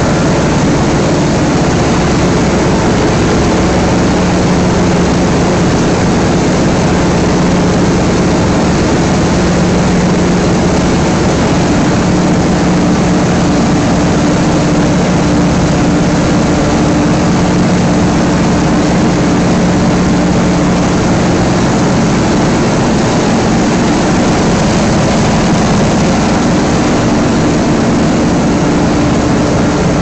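PE plastic film washing line running: a loud, steady mechanical drone with a steady low hum and no breaks.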